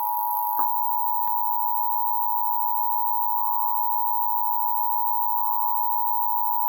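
Emergency Alert System two-tone attention signal: two steady tones near 853 and 960 Hz sounded together in one unbroken electronic drone, broadcast as part of a required monthly EAS test.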